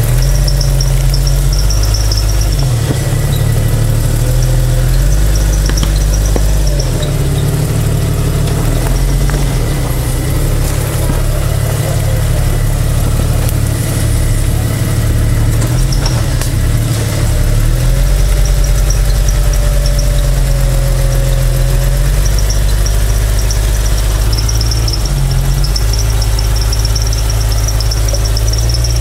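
Engine of a lifted Jeep Wrangler YJ running at low revs as it crawls over a rutted dirt trail, its low rumble rising and falling with the throttle. A faint high-pitched whine comes and goes over it.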